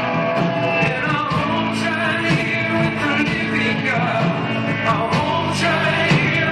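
Live worship band playing with a singing voice over it, drum and cymbal hits keeping a steady beat.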